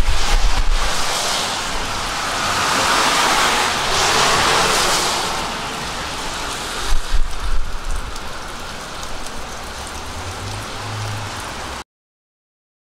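Steady rain falling, with water dripping off the edge of a porch awning. The rain swells and eases, a few sharper splashes come about seven seconds in, and the sound cuts off suddenly near the end.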